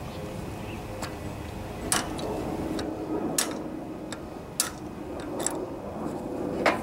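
Sharp metal clicks of a screwdriver and slip-joint pliers working the cap and retaining clip off a riding mower's front wheel spindle. There are about six clicks, irregularly spaced, with the loudest near the end.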